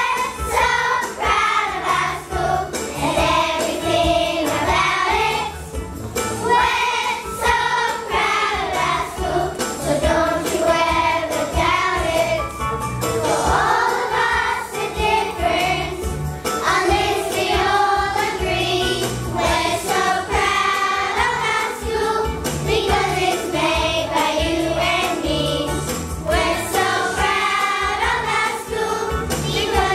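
Primary school children's choir singing with gusto over instrumental accompaniment, with a steady beat of jingling percussion.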